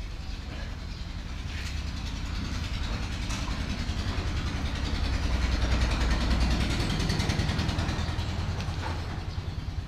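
A motor vehicle's engine running as it passes close by, growing louder toward the middle and fading near the end.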